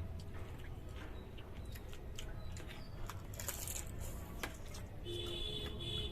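Eating sounds: small clicks and crunches of chewing and handling food over a low steady hum, with a brief hiss about three and a half seconds in and a short steady tone near the end.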